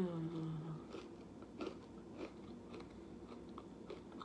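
Close-miked chewing and biting of a vegan empanada, with wet mouth clicks and crunches scattered through. A short hummed "mm" opens it.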